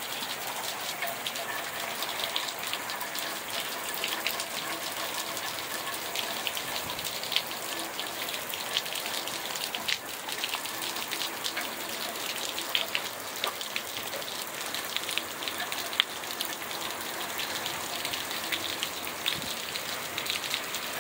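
Heavy rain falling steadily, a dense hiss of drops hitting the ground with sharper individual drop ticks scattered throughout.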